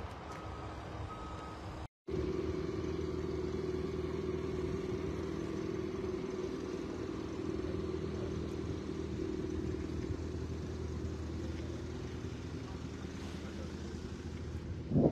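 A vehicle's reversing beeper sounds short repeated beeps for the first two seconds. After a sudden cut, a steady low engine hum runs, easing off a little toward the end.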